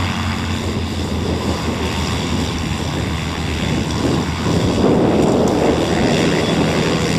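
Twin inverted six-cylinder piston engines of an L-200A Morava light twin running at low power as it taxis on grass, with wind buffeting the microphone. The sound grows louder about five seconds in.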